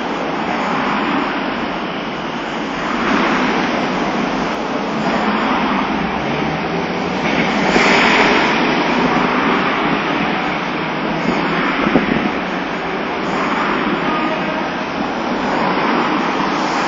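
Nagasaki Electric Tramway streetcar pulling away from a stop and running off down the street, its sound blending into street traffic, with wind buffeting the phone microphone. There is one sharp click about two-thirds of the way through.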